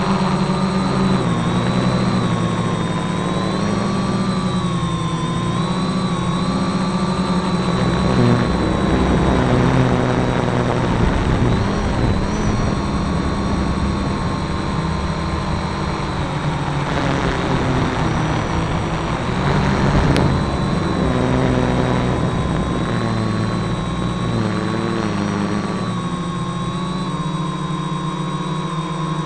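Electric motors and propellers of a GAUI 330X-S quadcopter in flight, heard from a camera mounted on the airframe: a steady whine whose pitch wavers slightly as the throttle changes, over a low drone.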